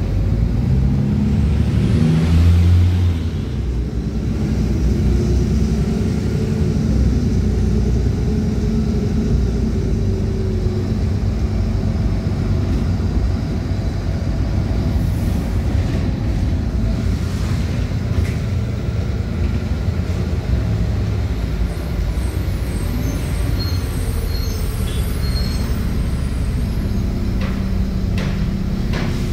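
Ride noise inside a moving city bus: a steady low engine and road rumble, swelling briefly about two to three seconds in. A few faint high beeps sound near the end.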